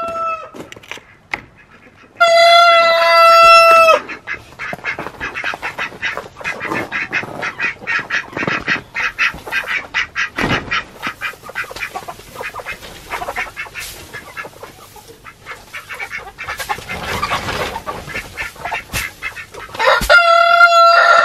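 A flock of chickens clucking, with a rooster crowing: one long, loud crow about two seconds in and another near the end.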